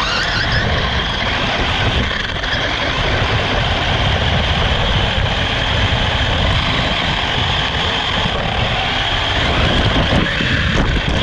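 Radio-controlled car running flat out, heard from its onboard FPV camera: a steady high motor whine over a loud rumble of wind and ground noise, starting abruptly and holding without a break.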